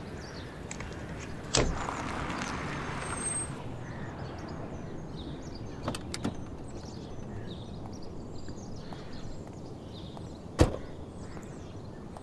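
Quiet outdoor ambience with faint bird chirps. Near the start a sudden knock is followed by about two seconds of rushing noise, a couple of light clicks come about six seconds in, and a car door shuts with one sharp thud about ten and a half seconds in.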